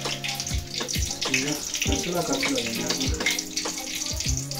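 Hot oil sizzling and crackling in a frying pan on a gas stove, with a low steady hum underneath.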